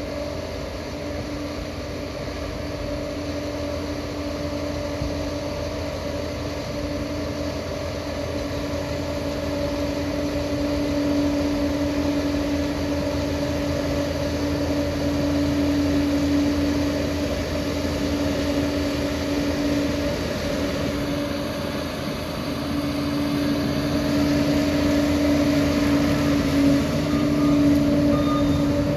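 Steady running noise of a vehicle, with a constant low hum that holds one pitch throughout and swells slowly in loudness.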